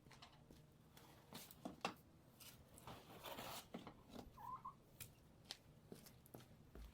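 Faint scattered scrapes and clicks, with one brief chirp from a chicken about four and a half seconds in.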